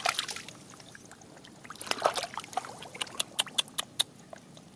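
Shallow water splashing and dripping in a quick, irregular series of small splashes and drips, mostly in the second half.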